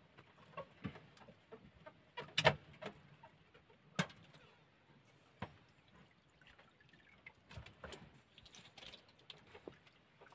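Scattered small knocks and taps on a wooden outrigger boat as a fishing hand line is handled, with a louder knock about two and a half seconds in and another at four seconds.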